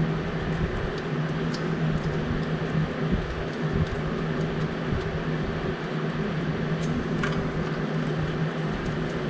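A steady low hum runs throughout, with a few scattered light metallic clicks from a wrench working the nut on the alternator's charging-cable terminal.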